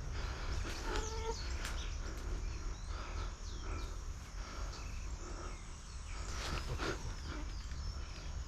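Outdoor ambience: many short bird chirps over a steady low rumble.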